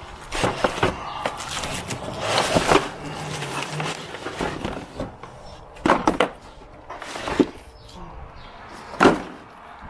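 Cardboard packing pieces and plastic wrap rustling and scraping as a boxed camp griddle is unpacked by hand. There are sharp knocks about six seconds in and again about nine seconds in.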